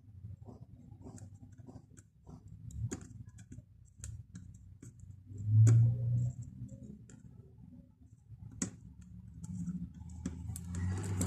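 Light, scattered clicks and taps of a soldering iron tip working against a TV's T-CON circuit board while a small surface-mount capacitor is desoldered, with one louder low thump a little past halfway.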